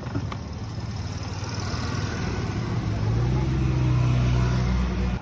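Battery-operated electric sugarcane press running as a cane stalk is fed through its rollers, a steady low hum that grows louder as it goes.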